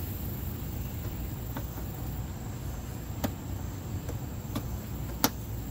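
A few short, sharp plastic clicks, the loudest near the end, as a plastic retaining clip is handled and pushed into place on the edge of a car's wheel arch, over a steady low rumble.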